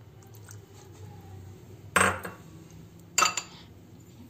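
Metal spoon knocking against glass dishes twice, about two seconds in and again a second later, each a sharp clink with a short ring.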